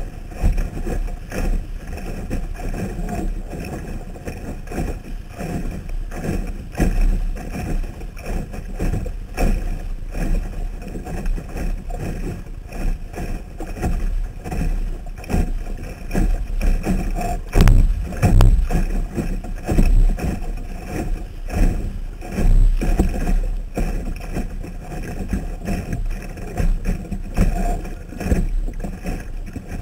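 Water sloshing and splashing against a Sunfish sailboat's hull and wind buffeting, picked up by a camera in a waterproof housing mounted on the boat, in uneven surges. A single sharp knock comes a little past halfway.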